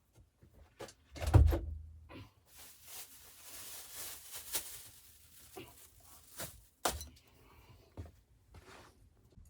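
A heavy thump about a second in, then rustling and a few sharp knocks, like things being handled in a small room.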